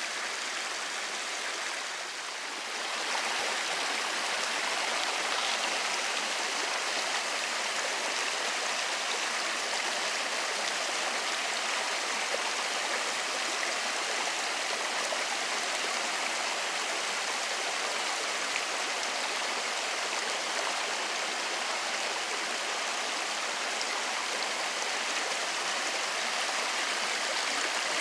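Small woodland stream rushing over mossy rocks and low cascades: a steady rush of water that gets a little louder about three seconds in.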